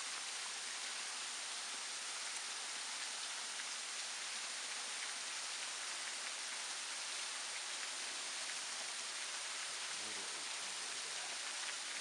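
Steady, even hiss of a thin waterfall splashing down over rock ledges, a rain-like patter of falling water.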